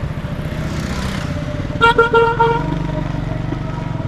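Motorcycle engine running steadily at riding speed. About two seconds in, a vehicle horn gives a quick burst of short beeps.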